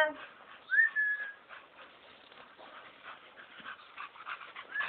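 A dog whining: one short high whine about a second in that rises and then holds, and a wavering whine near the end.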